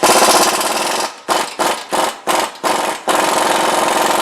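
Impact wrench hammering on a brake caliper bracket bolt, which is held with thread locker: a long run, then about five short bursts between one and three seconds in, then running steadily again.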